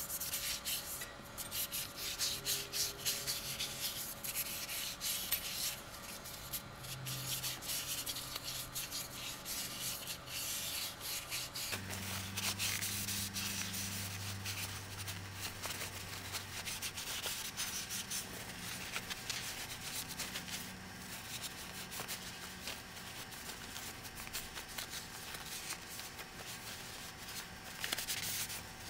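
Cloth rag rubbing in quick repeated strokes over a lath hammer, wiping boiled linseed oil into its wooden handle.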